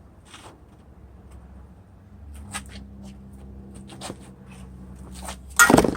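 Small hard parts being handled, giving scattered light clicks and rattles, then a louder clatter near the end, over a faint steady hum.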